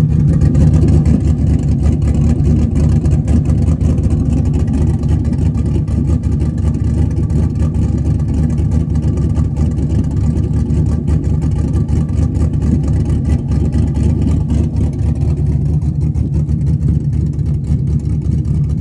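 The 6.2-litre L86 V8 of a Silverado High Country running steadily through its exhaust, a low, even exhaust note with no revving to speak of.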